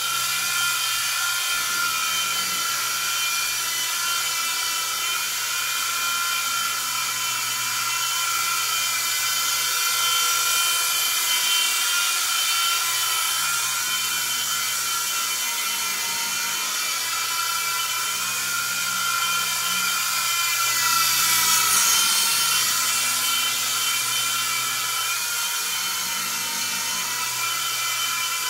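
Protocol Skyline G-Series three-channel coaxial RC helicopter in flight: the steady high-pitched whine of its small electric motors and the whir of its rotors, swelling a little about three-quarters of the way in.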